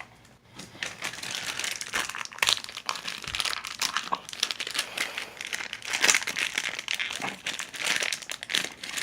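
Crinkling and rustling of packaging being handled and torn open, a dense run of irregular crackles that starts about half a second in.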